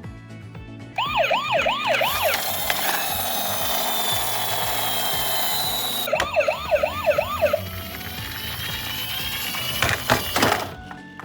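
Electronic siren yelping fast, its pitch rising and falling about four times a second, in two short spells about five seconds apart. A loud rushing hiss fills the gaps and has a few louder bumps near the end, over background music.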